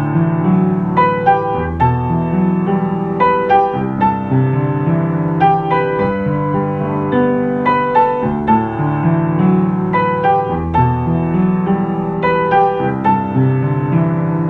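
Solo piano playing a K-pop ballad cover: a melody over repeating chords with low bass notes.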